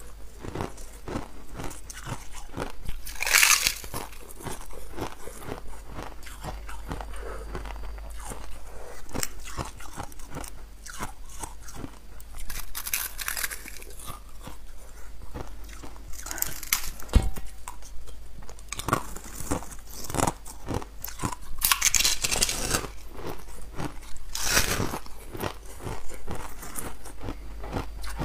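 Biting into and chewing a frozen block of crushed ice: a dense crackle of small ice snaps, with louder crunches every few seconds.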